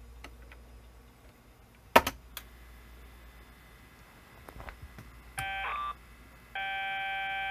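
A sharp click about two seconds in. About five seconds in comes a short burst of steady electronic tone, then after a brief pause a steady, buzzy data tone that holds to the end. This is the Tandy Model 102's cassette save signal, the header leader being written to tape, heard through the CCR-82 cassette recorder's speaker.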